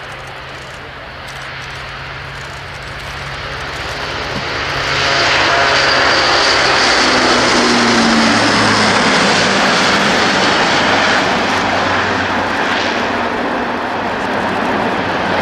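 Airbus A400M Atlas's four Europrop TP400 turboprops at take-off power, the propeller drone growing much louder over the first five seconds as it rolls and lifts off. The drone drops in pitch about six to nine seconds in as the aircraft passes and climbs away.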